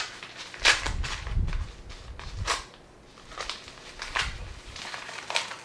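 A white shipping bag being handled and pulled open by hand: a series of about six short rustles and crinkles.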